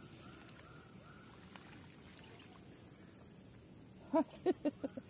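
A bird calling: about four seconds in, a run of five short harsh notes, each shorter and quicker than the last, over a steady high drone.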